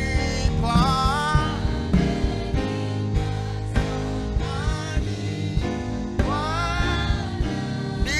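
Gospel song: voices singing over a steady instrumental band accompaniment.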